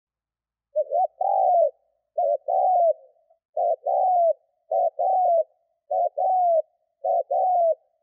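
Spotted dove cooing: six phrases about a second apart, each a quick double note followed by a longer note that falls away at its end.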